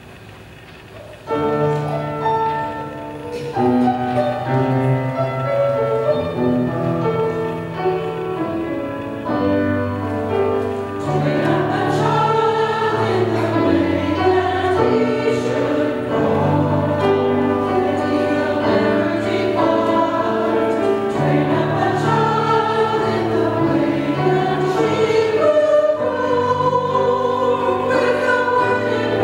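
Mixed-voice church choir singing an anthem with piano accompaniment. The music begins about a second in.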